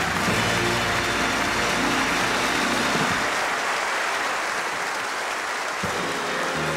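Studio audience applauding, with band music fading out under it in the first few seconds and new music coming in near the end.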